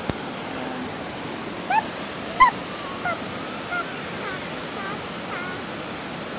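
Steady rush of a small waterfall, with a dog giving several short high-pitched whines over it.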